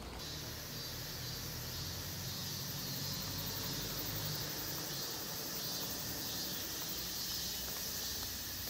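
Steady, high-pitched droning of cicadas in roadside trees, over a low outdoor rumble.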